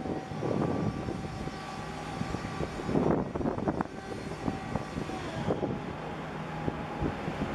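Steady engine drone from a large container ship moving past at low speed. Wind buffets the microphone in gusts, the strongest about three seconds in.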